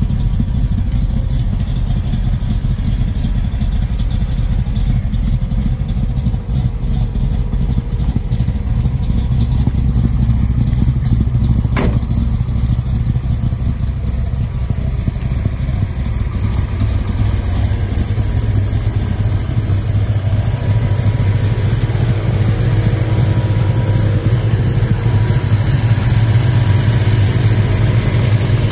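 Big-block Chevrolet V8 idling steadily, with one short click about twelve seconds in.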